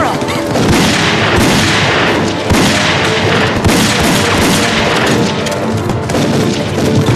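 Battle sound effects: gunfire and explosions, a dense rush of noise with sharp cracks, with music underneath.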